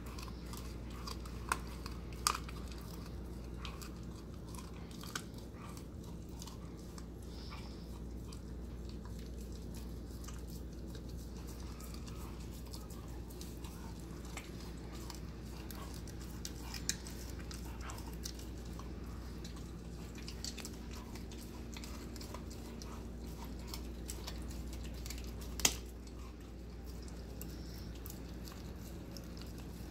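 Husky puppy chewing and crunching a raw chicken neck held in a hand, with scattered sharp cracks of bone and one louder crack near the end, over a steady low hum.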